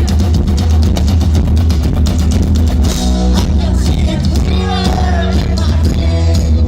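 Rock-style music with a steady drum beat; from about three seconds in, a singing voice or lead melody comes in over it.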